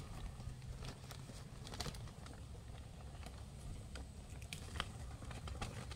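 Calamansi being picked by hand: faint scattered clicks as fruit stems snap and small fruits drop into a paper bag, with light rustling of leaves.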